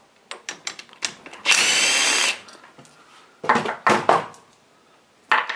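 A cordless power driver with a socket whirs in one burst of just under a second, spinning a cylinder base nut off a 156FMI 125cc engine. A few sharp clacks of metal parts and tools being handled follow.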